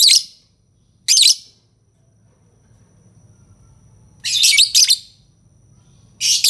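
Lovebird calling in short bursts of shrill, rapid chattering: one at the start, another about a second in, a longer double burst around four seconds in, and one more starting near the end.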